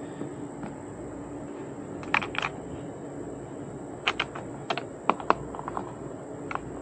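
Scattered light clicks and clacks of mounting brackets and hardware being handled and fitted, irregular and in small clusters, over a faint steady low hum.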